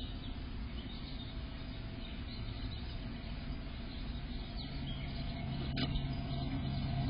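Steady hiss and low hum from the nest box camera's microphone, with faint bird chirps in the background. A single sharp knock about six seconds in matches the tree swallow leaving the wooden entrance hole.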